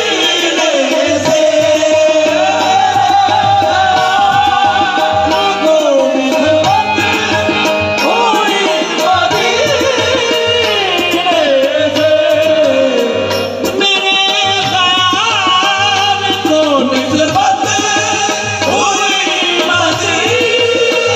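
Qawwali singing: a lead male voice in long, gliding melodic lines over sustained harmonium chords, with a steady low beat underneath.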